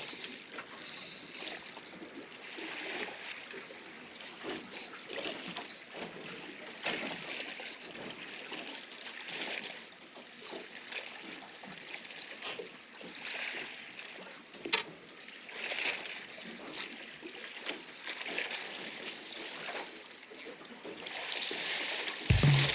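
Water splashing and sloshing against a small boat's hull, with scattered light knocks.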